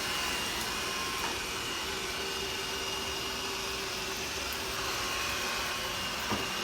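Roborock S6 Pure robot vacuum cleaner running steadily while cleaning, a constant whirring with faint high whines, and a small knock near the end.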